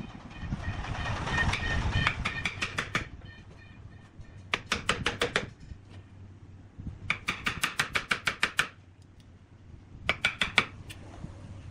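Bursts of rapid, evenly spaced knocking strikes, about seven a second, each run lasting about a second, with a faint metallic ring, over a steady low machine hum.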